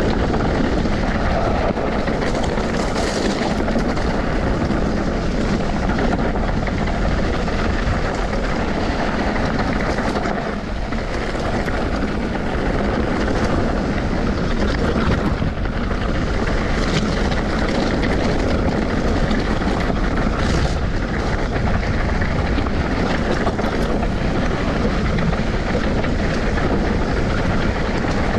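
Steady rush of wind over the microphone of a moving vehicle at speed, with running noise underneath that holds almost even throughout, dipping briefly about ten seconds in.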